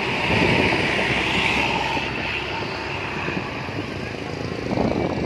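A bus passing close by: road and engine noise swells about a second in, then eases off. Voices come in near the end.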